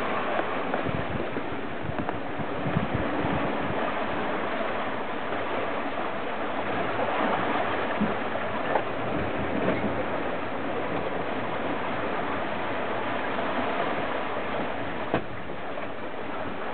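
Steady rush of water past a sailing yacht's hull, mixed with wind, as the boat moves at about nine knots, with a few light knocks.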